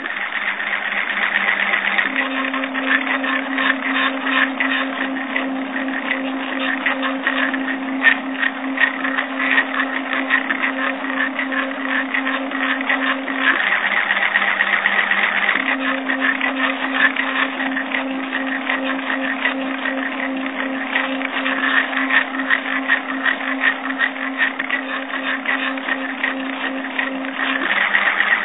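Stepper motor driving a threaded rod through a plastic linear-actuator nut. It runs with a steady low hum over a dense rattle of fine ticks. The hum drops to a lower pitch for a couple of seconds at the start, again about halfway through, and near the end.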